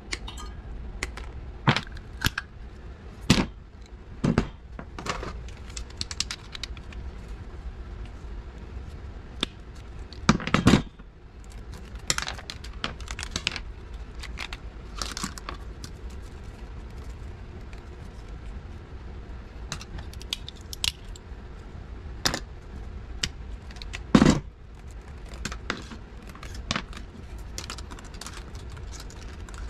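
Pliers and side cutters clicking and snipping as small copper-wound spools from circuit boards are pried apart and their wire pulled off, with scattered snaps and light taps of small parts. Two louder knocks come about a third of the way in and near the end, over a low steady hum.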